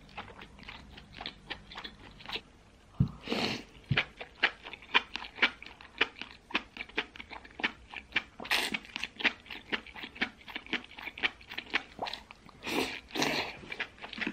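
Close-miked mouth sounds of eating sliced fatty beef: wet chewing clicks at about three or four a second, with a few longer slurps as slices are sucked in, about three seconds in, near the middle and near the end.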